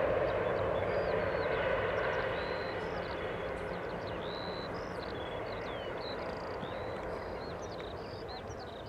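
Aircraft engine noise fading away after a plane passes, while small birds chirp and twitter over it.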